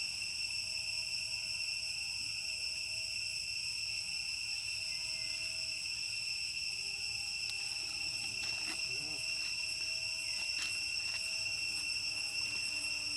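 Steady, high-pitched drone of insects, a chorus of several pitches held without a break. It is joined by a few short, sharp clicks or rustles a little past the middle.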